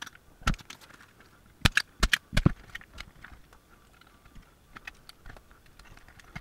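Spring-loaded solder sucker being cocked and fired while desoldering capacitors from a circuit board: a string of separate sharp clicks and snaps, the loudest cluster between about one and a half and two and a half seconds in, then fainter small clicks.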